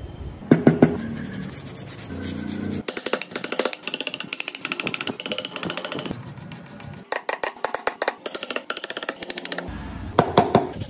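A steel hammer tapping a wood chisel in quick runs of several light blows a second, in bursts with short pauses, as the chisel pares into the wood.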